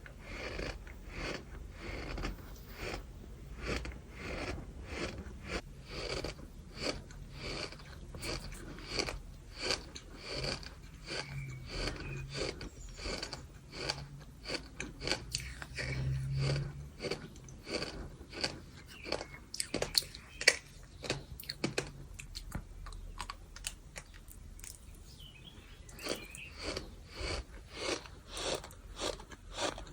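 Close-up chewing of gritty bird sand: crisp, gritty crunches at about two a second, with one sharper, louder crunch about two-thirds of the way through and a short lull after it.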